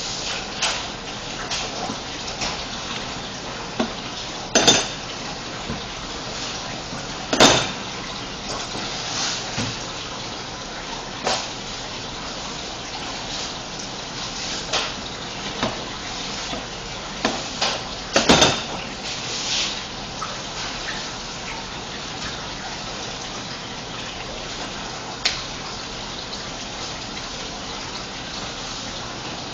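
Steady rushing background noise of a working kitchen, broken by a few sharp clatters of kitchen utensils on hard surfaces. The loudest clatters come about five, seven and eighteen seconds in.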